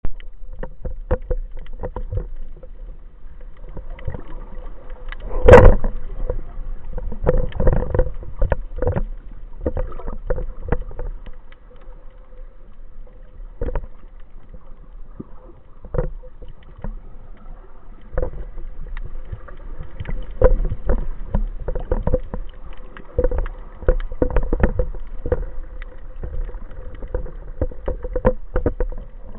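Underwater sound picked up through a waterproof camera housing: irregular clicks and knocks over a faint steady hum, with one louder thump about five and a half seconds in.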